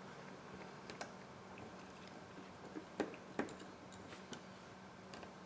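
Small clicks and taps of a precision screwdriver and metal parts in an opened iPhone 7 Plus as they are handled, with two sharper clicks about three seconds in, over a faint steady hum.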